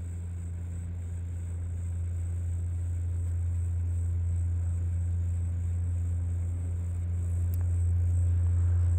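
A steady low engine drone, slowly growing louder.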